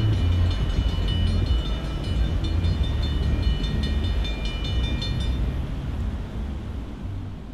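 Railroad grade-crossing bells ringing rapidly as the crossing gates rise, stopping about five seconds in, over the low rumble of a passenger train moving away. The sound fades near the end.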